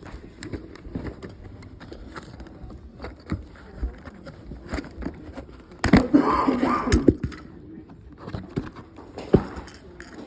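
Handling of plastic and cardboard toy packaging: scattered clicks, scrapes and crinkles, with a louder burst of noise about six seconds in.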